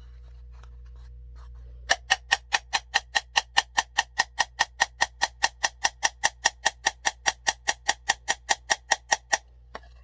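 Hammer tapping a nail into thick wood in a long quick run of light, even strikes, about four or five a second, starting about two seconds in. The nail is not going all the way through the wood.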